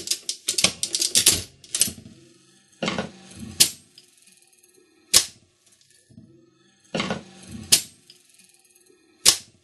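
Mechanical slot machine mechanism, stripped from its casing, clattering as its levers are worked by hand. A fast run of metallic clicks opens, then clusters of clacks follow, with single sharp snaps in between.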